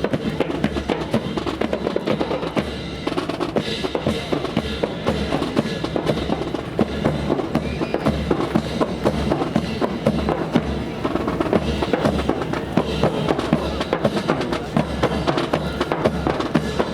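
Ensemble drumming: many rapid drum strokes over a regular low bass-drum beat, keeping up without a break.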